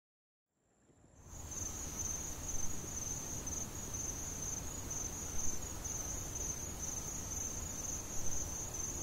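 Crickets trilling in a steady, high-pitched chorus over a low background hiss, fading in about a second in.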